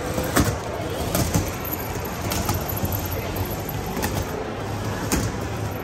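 Remote-control stunt car toy running on a display table, with several short sharp clicks or knocks, over the steady background noise of a busy shopping mall.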